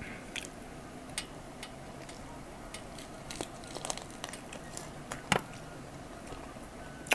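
Close-up eating sounds of crispy fried chicken being bitten and chewed and picked apart by hand: scattered small crackles and wet clicks, with one sharper click a little past five seconds in.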